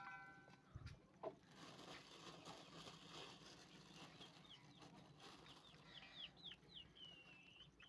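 Faint chicken sounds: a hen gives a short clucking call, then chicks peep in short, high, falling chirps that come faster and faster, ending in one longer peep.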